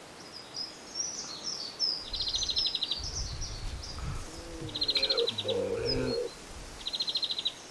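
Songbirds chirping, with a rapid trill repeated three times.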